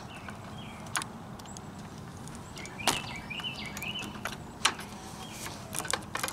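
Sharp metal clicks and knocks as a greased spring shackle is worked into the front leaf spring of a 1926 Model T. Single clicks come about a second in, near three seconds and near five seconds, then a quicker run of clicks near the end.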